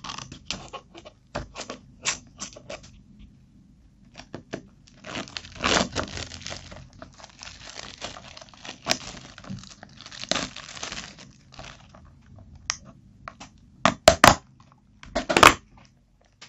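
Plastic film being cut with scissors and peeled off a clear plastic chocolate tub, crinkling and tearing in irregular crackles. There is a long stretch of denser crinkling in the middle, and a few loud, sharp plastic snaps near the end as the tub is handled open.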